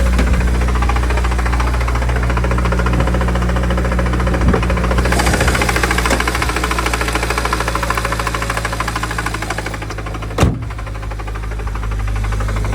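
BMW N54 twin-turbo inline-six idling with a fast, even knock running through it, which the owner suspects is either a faulty AC compressor or rod knock. A single louder sharp click sounds about ten seconds in.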